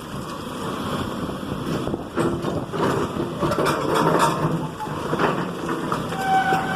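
House demolition under way: a machine's engine running while wood and debris crunch and clatter in repeated knocks, with a brief high squeal near the end.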